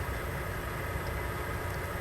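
Truck engine idling steadily: a constant low rumble with an even hum.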